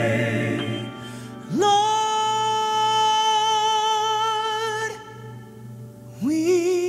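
A high male tenor voice singing solo: about a second and a half in, it slides up into a long held note with vibrato, breaks off, then near the end slides up into another held note. A chord from the group fades out at the start.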